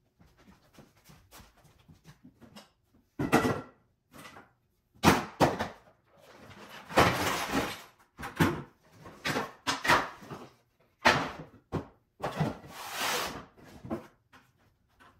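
Clatter of a plastic bucket and scrap wood being handled: a series of separate knocks and bumps, with two longer scraping, rustling stretches.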